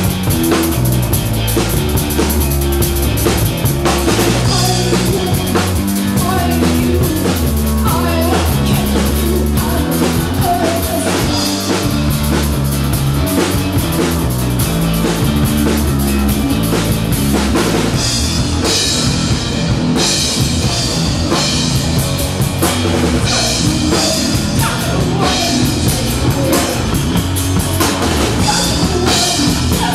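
Loud rock music from a band: drum kit and electric guitar over a stepping bass line. Cymbals grow brighter about two-thirds of the way in.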